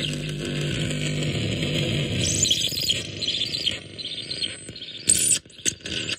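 Phantom Cell, a homemade experimental noise machine, played by hand on its field of metal contact studs. It gives dense electronic noise with a low buzz and scattered chirps. After about four seconds it thins to crackles and sputters with a thin high whistling tone, broken by one loud burst a little after five seconds.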